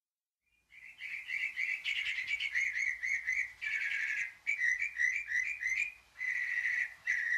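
A small bird chirping: short, high, repeated chirps about three or four a second, broken twice by a longer held note.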